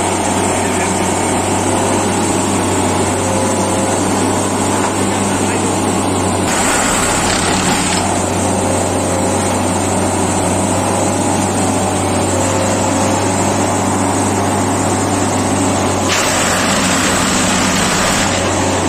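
Railway track tamping machine running loud and steady, its engine and hydraulics giving a constant low hum. There are two spells of louder rushing noise, about a third of the way in and near the end, as the vibrating tamping tines work into the ballast.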